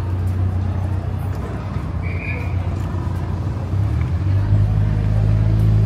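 Street traffic with a motor vehicle engine running close by, its low hum growing louder about four seconds in. A short high squeak about two seconds in.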